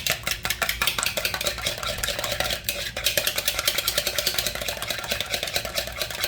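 Raw eggs being whisked briskly in a bowl: fast, even clicking and scraping of the utensil against the bowl's sides.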